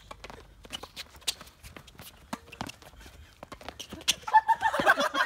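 Tennis volley rally at close range: sharp, irregular pops of the ball on racket strings, mixed with footsteps and shoe scuffs on a hard court. About four seconds in, voices break into laughter.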